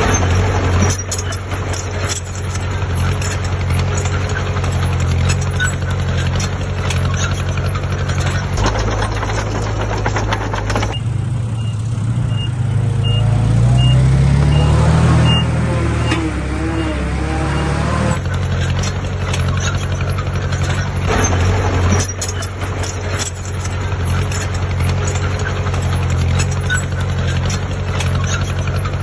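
Heavy diesel engine of earthmoving machinery running with a steady deep drone, with frequent clanks and knocks. About a third of the way in the sound changes abruptly for several seconds: an engine revs up while a reversing alarm beeps about twice a second. Then the steady drone with its clanking returns.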